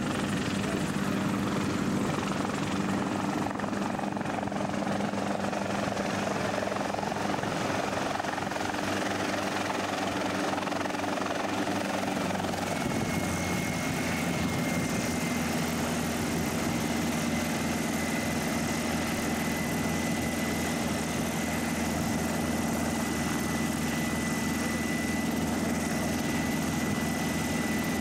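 Small bubble-canopy helicopter's engine and rotor running steadily. About halfway through the note changes and a thin, steady high whine sets in while it sits on the ground with the rotor still turning.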